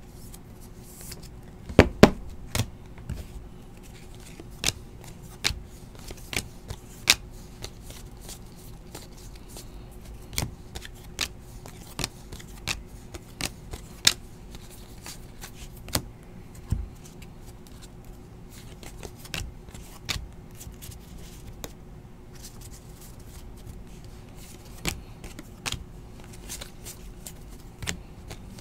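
Donruss basketball trading cards handled and flipped through by hand: irregular sharp clicks and taps of card stock against cards and the table, the loudest pair about two seconds in. A faint steady hum runs underneath.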